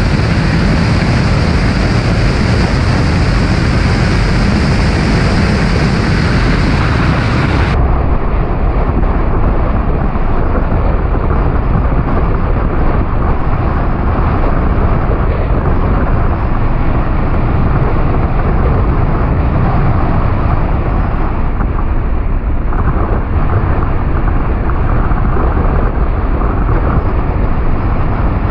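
Race car at speed on a circuit: a steady, loud mix of engine, wind and road noise picked up by a car-mounted camera. The hiss at the top of the sound drops away suddenly about eight seconds in.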